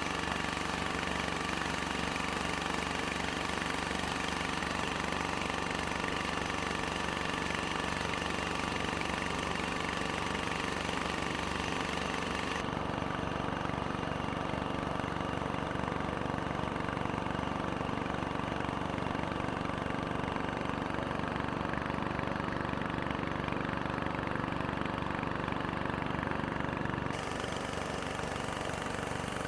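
Motor boat engine running steadily, with abrupt changes in tone about halfway through and again near the end.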